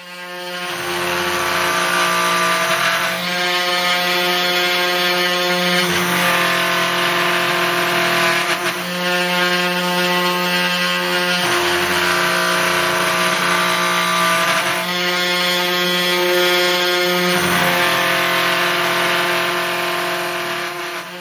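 3018 desktop CNC router's spindle and stepper motors running as the bit carves a roughing pass in mahogany. It comes up to speed over the first second or two and then runs as a steady machine whine, its tone shifting every three seconds or so.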